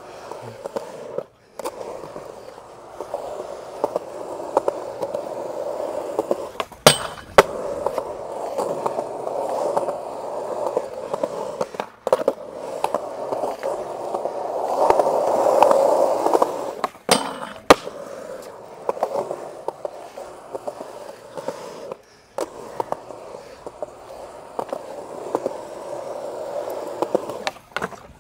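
Skateboard wheels rolling on a concrete skatepark, a steady rumble that swells louder about halfway through. Sharp clacks of the board striking the concrete break in several times, twice as a pair about half a second apart, as in a pop and landing.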